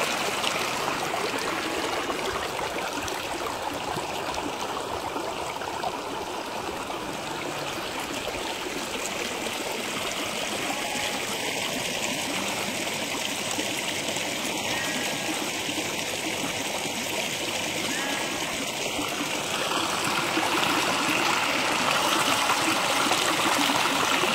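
A stream flowing, a steady rush of running water that grows a little louder near the end.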